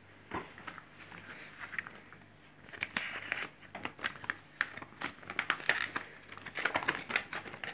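Foil blind-bag packets and a folded paper leaflet crinkling and rustling as they are handled and opened out: irregular crackles, sparse at first and busier from about three seconds in.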